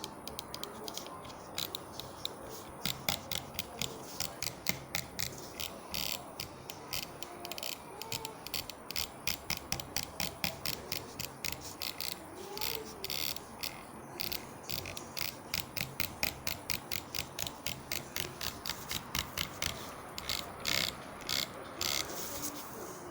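Everest Javelin gaming mouse's button being drag-clicked: fast, dense runs of sharp clicks, many a second, in bursts separated by short pauses.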